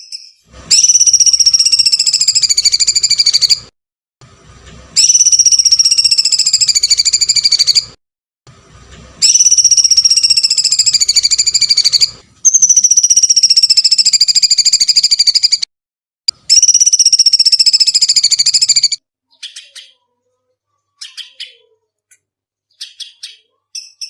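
Songbird giving five long, shrill, rapidly pulsed trills of about three seconds each, each falling slightly in pitch, with short pauses between them, then a few short scattered chirps near the end.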